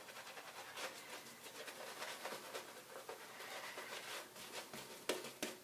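Kent BK4 shaving brush working a hard-soap lather on the face: a faint, fine crackling swish, with a few sharper clicks near the end.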